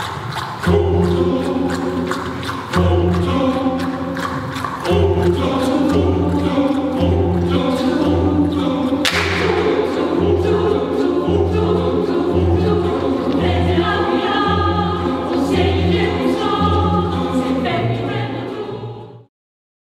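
Choir singing with instrumental accompaniment over a steady pulsing bass note. The music cuts off abruptly about a second before the end.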